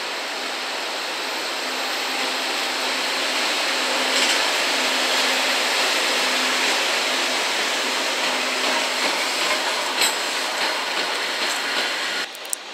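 EF65 electric locomotive moving slowly past with its cooling blowers running in a steady rushing hiss over a low hum, towing the D51 steam locomotive dead, with a few wheel clicks over rail joints. The noise grows louder over the first few seconds and drops off abruptly near the end.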